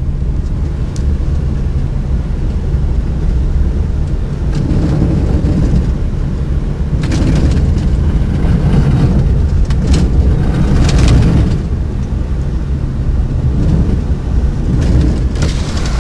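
Vehicle engine and tyres rumbling, heard from inside the cab while driving slowly along a snow-covered road. The rumble grows louder for a while in the middle, with a few short, sharp knocks between about seven and eleven seconds in.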